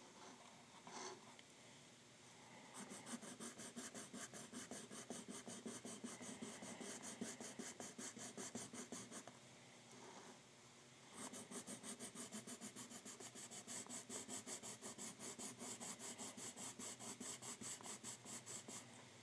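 Pencil shading on paper: rapid back-and-forth scratching strokes, about five a second, in two long runs with a lull of about two seconds between them.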